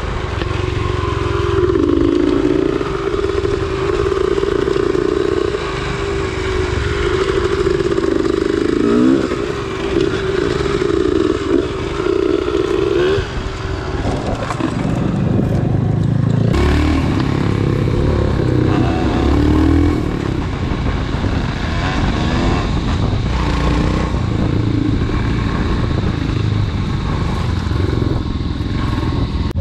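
Royal Enfield Himalayan's 411 cc single-cylinder engine running on an off-road trail ride, its revs rising and falling with the throttle. Clatter from the bike over rough ground mixes in.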